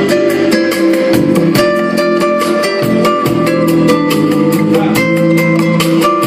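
Instrumental passage of a song with no vocals: guitar strummed in a quick, steady rhythm under held melody notes.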